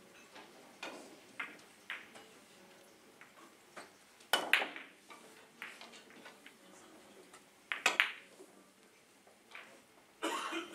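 Carom billiard balls and cue clicking during three-cushion play: scattered sharp clicks, with louder clusters of ball-on-ball strikes about four seconds in and about eight seconds in. A longer rattle follows near the end.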